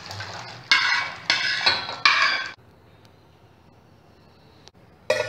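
Stainless steel pan and vessel clanking and scraping against each other for about two seconds as boiled millet and water are tipped from one into the other, then quiet apart from a single click.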